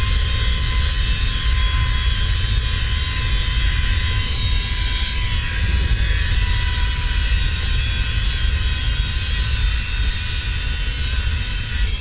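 Wind buffeting the microphone as a zipline trolley runs at speed along the steel cable. A steady high whine from the trolley's pulleys on the cable sinks slightly in pitch over the seconds.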